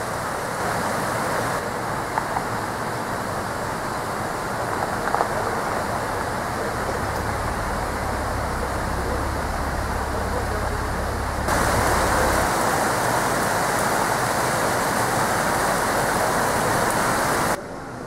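Steady rush of flowing river water, a little louder from about eleven seconds in, with a low rumble underneath for a few seconds in the middle.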